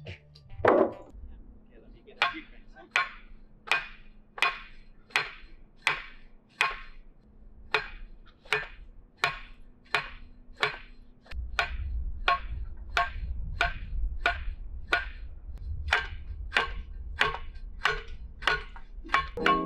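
Manual post driver pounding a steel fence post into the ground: a steady run of sharp metallic clanks with a short ring, about one and a half a second, some two dozen strikes. A heavy thud about a second in, before the pounding starts; a low rumble joins about halfway through.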